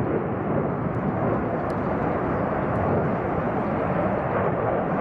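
F-15J fighter's twin F100 turbofan engines running in a display flight overhead: a steady, loud jet noise.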